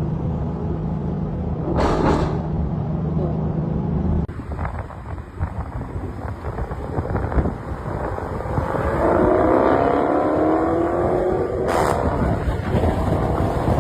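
Land Rover Defender 110's V8 engine idling steadily, then running with a rough, crackly rumble, then revving with rising pitch about nine seconds in. Brief rushing sounds come about two seconds in and again near the end.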